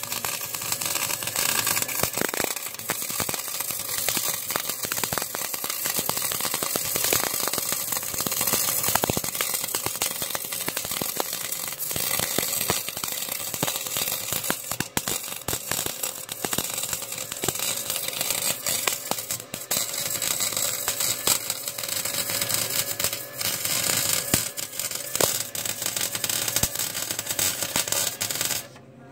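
Small 110-volt MIG welder with shielding gas laying a weld on exhaust pipe tubing: the steady crackling sizzle of the arc, which cuts off suddenly near the end.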